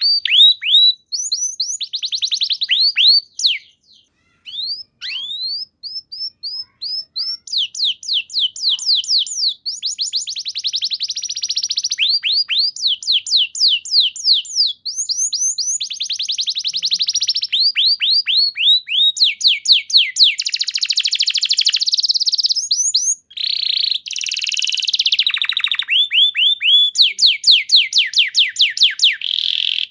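Canary singing: rapid trills of repeated falling whistled notes, changing speed and pitch from phrase to phrase, with a brief pause about four seconds in.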